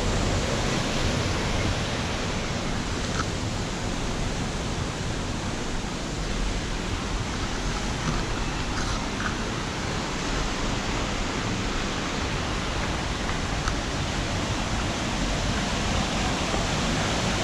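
Steady rush of white water pouring through the Punch Bowl, the rock gorge at Devil's Bridge where the River Mynach has eroded swirl pools.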